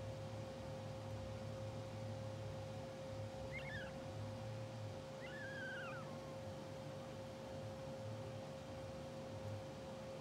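Newborn English bulldog puppies squeaking faintly in their sleep, twice: a short squeak about three and a half seconds in and a longer falling one near six seconds. Underneath runs a steady hum with a constant pitched tone.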